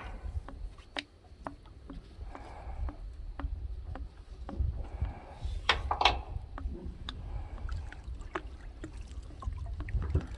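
Water sloshing and splashing around a man wading beside a boat, with scattered sharp clicks and knocks as a tow strap is handled against the boat's metal frame, over a low rumble.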